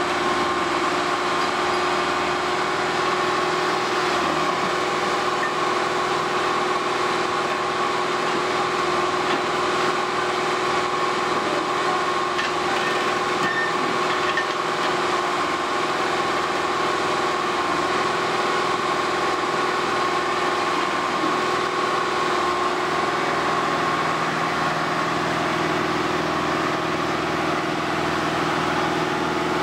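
Road-rail hydraulic excavator's diesel engine running steadily, with a steady whine over it, as its grab lifts a section of track.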